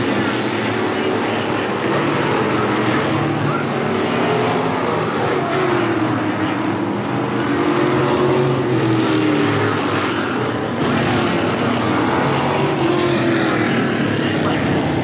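Vintage modified dirt-track race cars running at speed, their engines a steady loud drone whose pitch dips and rises as they lap the oval.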